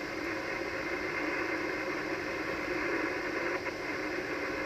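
Steady static hissing from an Icom HF transceiver's speaker. The receiver is tuned to 3.853 MHz on the 80-metre band and no station is talking, so only band noise comes through.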